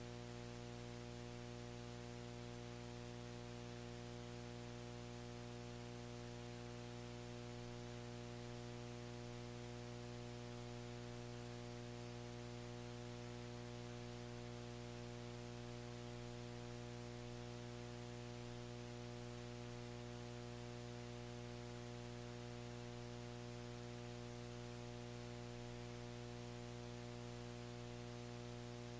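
Steady electrical mains hum with a stack of overtones, over a faint hiss of background noise.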